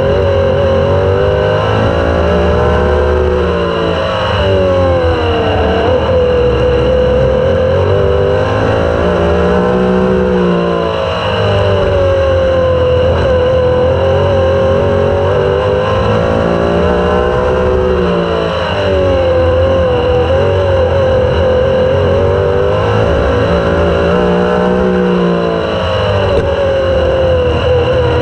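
Super sprint race car's engine running hard, heard up close from the car itself. Its pitch dips and climbs back about every seven seconds as the driver lifts for the turns and gets back on the throttle down the straights.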